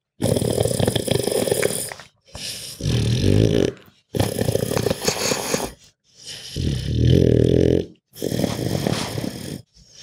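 A pug groaning and breathing heavily: five long, rough breaths with a low groaning tone, each about two seconds, split by short pauses.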